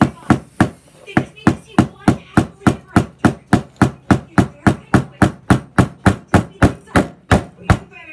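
Rapid, even strikes on a hard surface, about three to four a second, like chopping on a board, spacing out slightly near the end.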